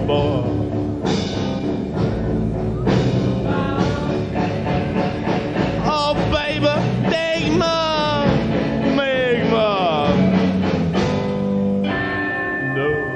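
Rock and roll band playing live, with drums, bass and electric guitars in a full, steady groove. In the middle a lead line slides up and down in pitch.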